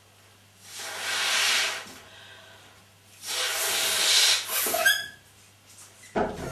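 Two long breaths blown into a latex balloon, inflating it by mouth, each a breathy rush of more than a second. The second ends in a short rising squeak from the balloon, and a short thump follows near the end.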